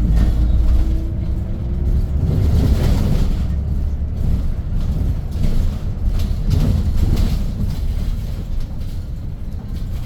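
Cabin sound of a Hyundai New Super Aerocity city bus under way: its C6AF compressed-natural-gas engine running with a deep, steady rumble and road noise, a faint rising whine in the first couple of seconds.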